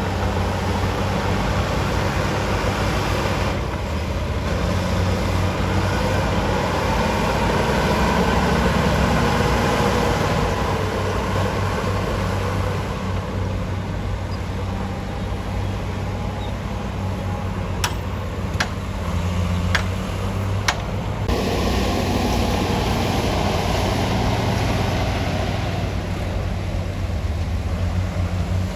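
Diesel engine of a Komatsu D53P bulldozer running steadily as the machine works, with a few sharp clicks or knocks a little past the halfway point.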